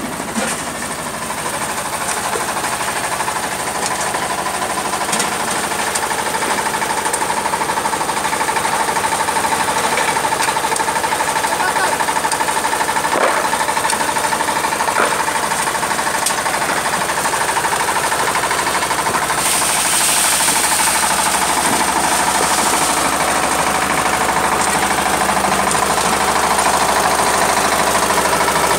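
Coal crusher running under load, with its engine, making a loud, steady, fast mechanical rattle and knock as it crushes coal and its conveyor elevator carries the pieces up onto the heap.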